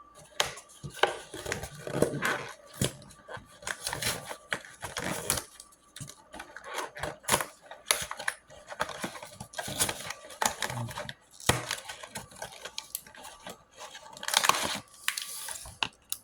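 A blind-box toy package being opened by hand: cardboard and plastic wrapping tearing, crinkling and rustling in irregular bursts, with small clicks.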